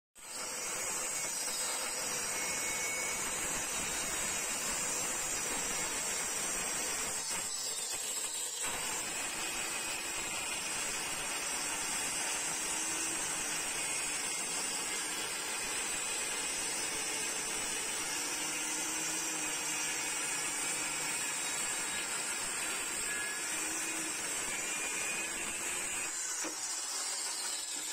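Handheld electric circular saw running under load, its blade ripping lengthwise along a hardwood plank, with a steady high motor and blade whine. The sound thins briefly for about a second, some seven seconds in.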